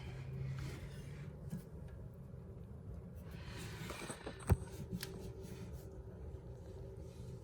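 Faint handling sounds of the bidet hose being fitted and hand-threaded onto the toilet T-valve, with a rustle a little after three seconds in and one sharp click about four and a half seconds in.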